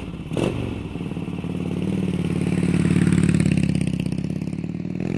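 2002 Harley-Davidson Dyna Low Rider's 88 cubic inch Twin Cam V-twin running through its Python staggered exhaust, swelling louder toward the middle and easing back. A short knock sounds just after the start.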